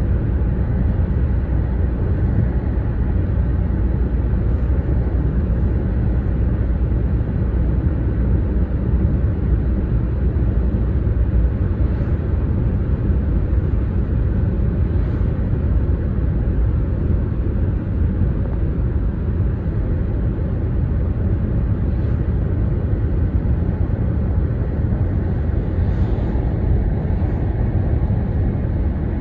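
Steady low rumble from a bridge, unchanging throughout, with a few faint ticks over it.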